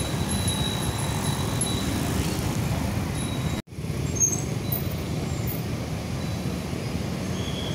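Steady rumble of motorbike engines and road traffic around a passing crowd of cyclists, with bicycle bells ringing in short repeated rings during the first two seconds. The sound drops out for a split second about three and a half seconds in.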